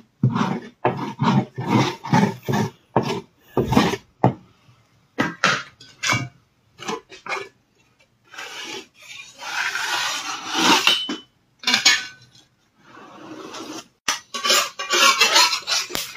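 Quick, rhythmic rubbing strokes on a large metal pan as pancake batter is spread by hand, two to three strokes a second. These give way to irregular scraping and clatter as the pan is handled.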